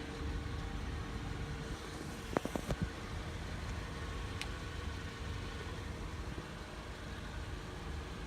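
Nissan Sentra idling steadily, with a short cluster of knocks about two and a half seconds in and a single tick a little later.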